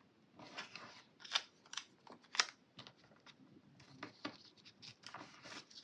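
Small scissors snipping paper or tape, a series of short irregular snips with light handling between them, the sharpest about two and a half seconds in.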